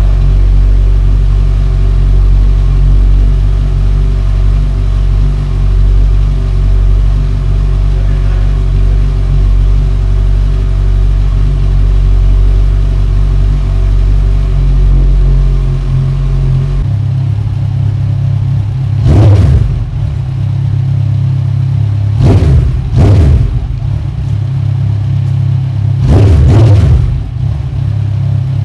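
2015 Kawasaki Z1000's inline-four engine with Vance and Hines quad slip-on mufflers idling with a deep, steady exhaust note. About two-thirds through, the idle note shifts higher, and several short throttle blips follow, two of them in a quick pair.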